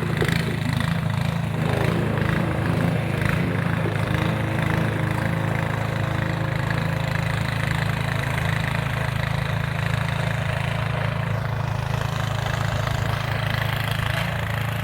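Gas-powered snow blower's small engine running steadily at an even speed.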